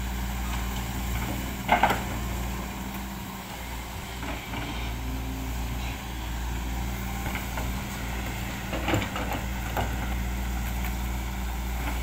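SANY SY215C hydraulic excavator's diesel engine running steadily while the machine digs in mud, with a brief knock about two seconds in and another near nine seconds.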